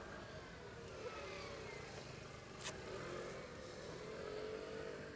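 Light street traffic: cars passing on the road, their engine pitch gliding up and down. A single sharp click comes about halfway through.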